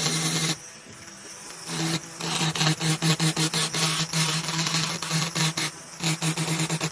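Ryobi ONE+ 18V brushless cordless rotary tool spinning a tungsten carbide burr against the aluminium port of a Predator 212 non-hemi cylinder head: a steady high whine with grinding rasp. The grinding eases off about half a second in, then comes back in rapid, choppy passes from about two seconds in.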